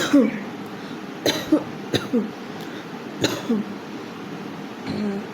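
A woman coughing in short double coughs, about four bouts roughly a second apart, each cough trailing off in a voiced sound that falls in pitch. It is a real cough from a cold she has had since the day before.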